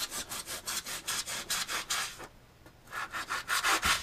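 Fillet knife sawing back and forth through vinyl-backed foam in quick strokes, about seven a second. The cutting stops a little past two seconds in and starts again for about a second near the end.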